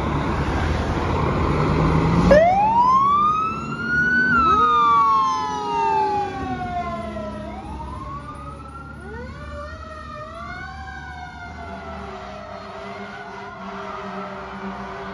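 Fire engine pulling away with loud engine and road noise, then its siren starts about two seconds in: a rise in pitch followed by a slow fall, winding up again several times and getting quieter as the truck drives off.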